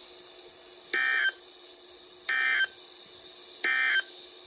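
Weather radio sounding three short, identical warbling data bursts about 1.35 s apart: the SAME end-of-message code that closes a NOAA Weather Radio warning broadcast, heard through the receiver's speaker over a faint steady hum.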